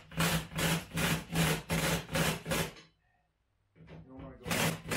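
Kobalt 24-volt brushless cordless impact driver running a bolt down through a deep socket, rattling in quick even pulses over a steady motor hum. It stops about three seconds in, then gives a second short burst near the end.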